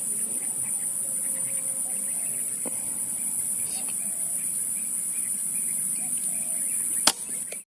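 Insects droning steadily in a high-pitched unbroken tone, the background of a rural field. A single sharp click comes near the end, just before the sound cuts off.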